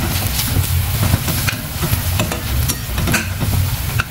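Slotted steel spatula stirring and scraping sliced onions and green chillies sizzling in oil in a stainless steel pan, as freshly added chilli powder and sambar powder fry in. Short scrapes of metal on the pan come over a steady sizzle and a low hum.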